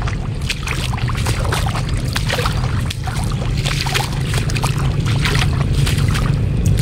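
Feet wading through shallow water over soft mud, with many short, irregular splashes and squelches under a steady low rumble.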